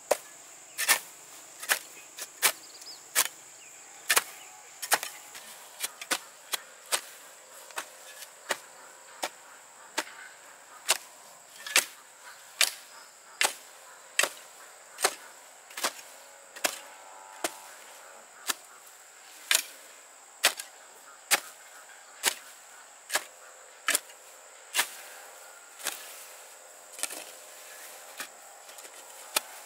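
A hand hoe chopping into soil while weeding, a sharp strike about every 0.7 s in a steady rhythm. Insects shrill steadily behind it.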